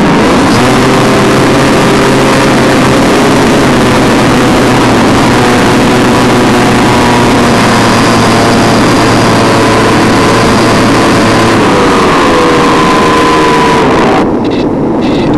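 Electric motor and pusher propeller of a Multiplex Funjet Ultra RC plane in flight, heard from its onboard camera: a steady motor whine under heavy wind rush. The pitch falls about 12 seconds in, and the rush drops off sharply near the end as the plane comes down low to land.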